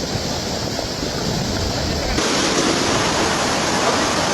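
Rushing floodwater: a steady rush of fast-moving water. About two seconds in it cuts to another recording where the rush is louder and brighter.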